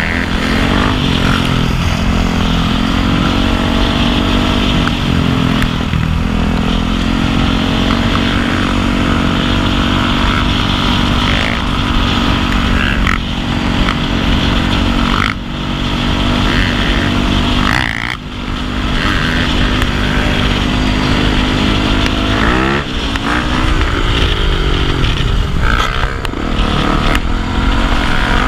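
Motorcycle engine running under way, its pitch holding for long stretches and rising and falling with the throttle, with a cluster of rev changes near the end. The engine sound drops off briefly twice about halfway through, as at a gear change or easing off the throttle.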